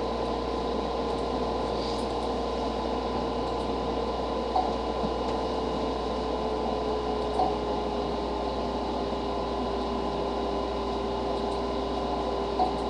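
Steady machine hum and hiss with a faint steady whine that sinks slightly in pitch, broken by three soft clicks.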